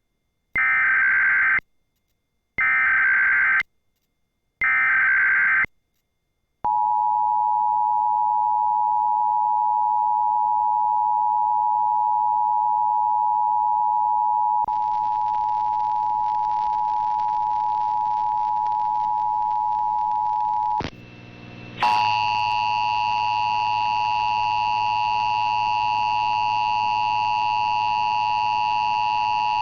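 Emergency Alert System tones from a SAGE EAS ENDEC relay. First come three one-second bursts of the screechy SAME header data, then the steady two-tone attention signal. About 21 s in the tone drops out briefly and comes back harsher, with extra high tones layered on top.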